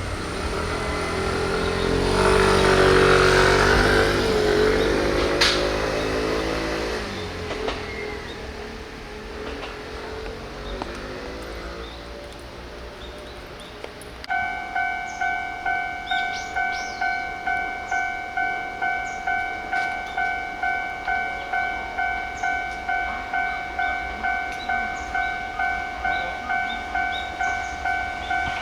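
An electric train passes over the crossing in the first few seconds, its motor sound falling in pitch as it goes by. About halfway through, the level crossing's electronic warning bell starts clanging about twice a second, signalling that another train is approaching.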